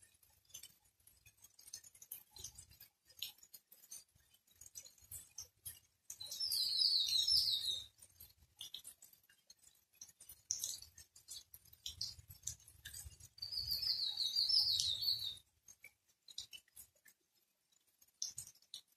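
Light rain: scattered drops and drips pattering. Twice, a bird's rapid high chattering call cuts through, each lasting about a second and a half to two seconds.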